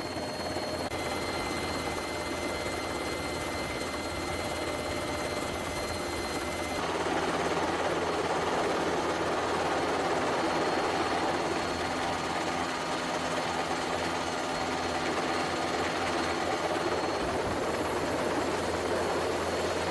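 Helicopter cabin noise: a steady drone of rotor and turbine with a few constant whines, getting louder and fuller about seven seconds in.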